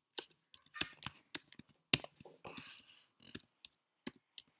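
Irregular light clicks and taps of ingredients and utensils being handled, with brief soft rustles; the sharpest click comes about two seconds in.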